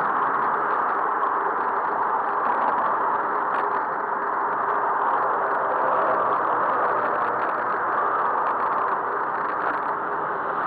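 Steady road and wind noise of a bicycle ride through city traffic, with a few faint rattles.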